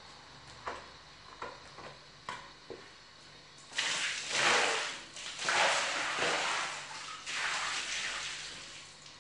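Water thrown from a plastic bucket across a hard floor, splashing in three swooshes about a second and a half each, beginning about four seconds in. A few light knocks come before the first throw.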